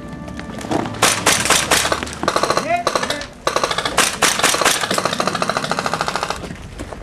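Airsoft guns firing on full auto: scattered shots, a short rapid burst about two seconds in, then a long, even rapid burst of about three seconds.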